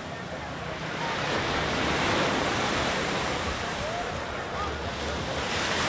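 Small waves washing onto a sandy beach in a steady rush that swells slightly after the first second, with wind buffeting the microphone.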